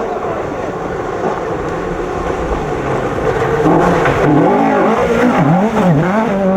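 Rally car engine driven hard. It is loud and rough at first, then from about halfway through the revs rise and fall sharply several times, as on gear changes and lifts through corners.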